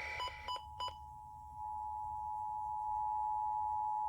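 Emergency Alert System two-tone attention signal: two steady tones sounding together, starting about a second in and growing louder shortly after, following a few short electronic beeps. It is the alert tone that opens a Required Monthly Test broadcast over FM radio.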